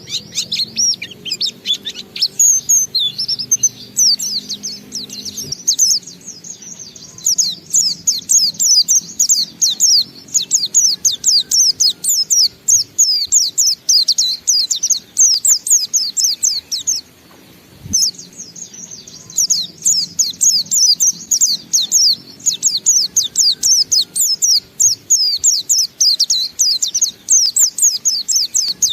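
A white-eye (pleci) singing a long, rapid twittering song of quick, high falling notes in its continuous ngalas style, with one short break partway through.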